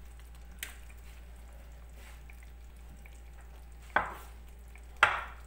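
Marinated potato pieces dropped by hand into tomato sauce in a stainless steel pot: two sharp wet plops about a second apart near the end, over a faint low hum.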